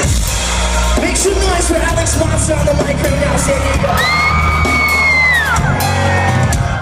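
Live band playing loudly with drums and bass, heard from the crowd. About four seconds in, a high held note sounds for about a second and a half, then falls away.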